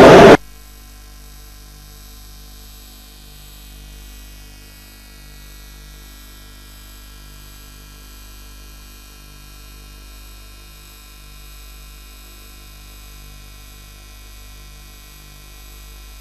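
A loud noise cuts off abruptly about a third of a second in, leaving a steady, low-level electrical hum and buzz with a slow, regular pulsing.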